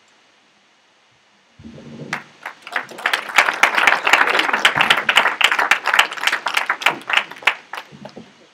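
Audience applauding: dense clapping starts about a second and a half in, swells, and thins out to a few last claps near the end.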